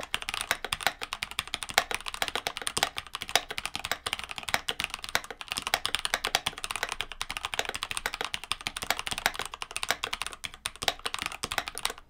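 Fast continuous typing on a Keychron K12 60% mechanical keyboard with stock Gateron Brown tactile switches: a dense run of crunchy, somewhat muted keystrokes, with the spacebar strikes louder than the other keys.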